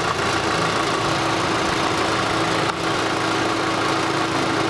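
Car engine idling steadily, heard with the hood open. It is left running warm so the fresh coolant circulates through the cooling system.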